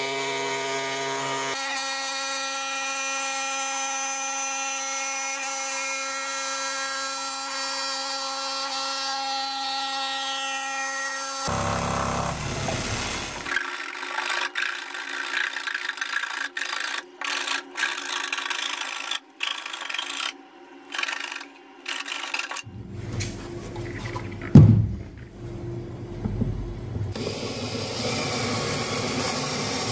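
Jigsaw cutting a circle in the wooden panel of a subwoofer box, its motor running at a steady whine, then in short, chopped-up bursts, with one loud thump about three-quarters of the way through. Near the end a cordless drill runs steadily, boring a pilot hole in the panel.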